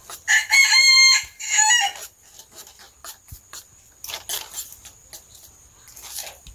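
A rooster crows once, loud, starting about half a second in and lasting under two seconds, in two parts with a falling end. Around it, a metal spoon scrapes and clicks in a ceramic bowl as sauce is stirred.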